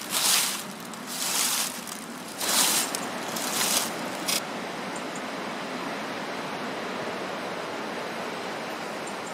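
Footsteps in garden clogs swishing through grass and dry fallen leaves, four steps about a second apart, then a steady even rushing noise once the walking stops.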